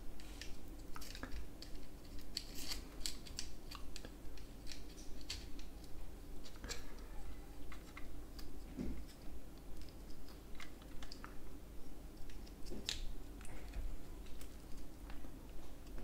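Scattered small clicks and taps of plastic gearbox parts being handled as a small drive belt is worked back onto the gears of a robot vacuum's wheel assembly.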